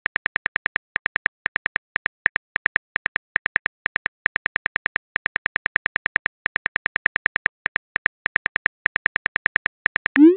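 Phone keyboard typing sound effect: a fast run of identical short clicks, about six a second with brief pauses, as a text message is typed out. Near the end comes a short rising swoosh, the message-sent sound.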